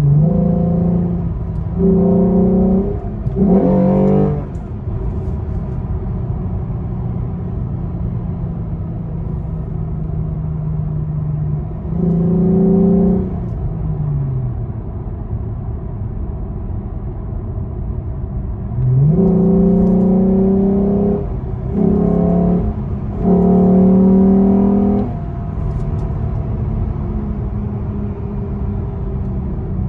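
Lexus GS 350's V6 through a Borla S-Type axle-back exhaust, heard from inside the cabin while driving at about 3,000 rpm in Sport mode: a steady exhaust tone over road rumble. It swells louder with each press of the throttle: three short pulls in the first few seconds, one around twelve seconds, and three more between about nineteen and twenty-five seconds. The revs fall away once after the middle pull and climb at the start of the late ones.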